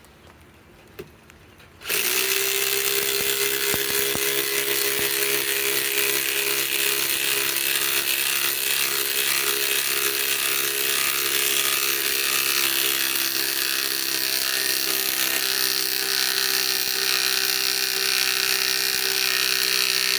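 Kobalt XTR impact driver driving a 6-inch lag screw, starting about two seconds in and running steadily under load for about eighteen seconds before cutting off suddenly.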